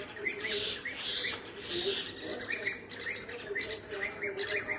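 Birds chirping: many short, rising squeaky notes in quick succession, overlapping one another.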